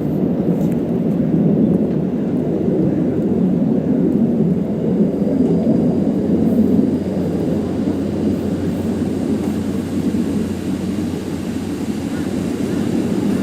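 KiYa 95 diesel track-inspection train running, a steady low rumble of engine and running gear.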